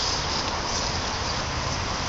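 Steady drone of insects in summer woodland over a continuous low rumble.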